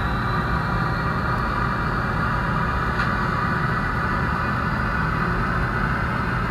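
Roco HO scale model train, a class E10 electric locomotive hauling passenger coaches, running steadily along the layout track with an even running noise.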